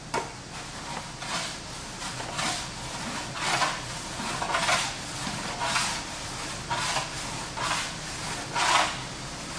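Hand file stroked across an aluminum fender panel, about nine rasping strokes roughly a second apart. The file is skimming off the high spots around a low spot that has just been tapped up with a pick, showing how far it has come up.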